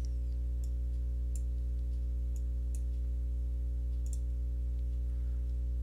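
Steady low electrical hum with a stack of overtones, over which a handful of faint computer mouse clicks fall at irregular intervals as sketch lines are trimmed.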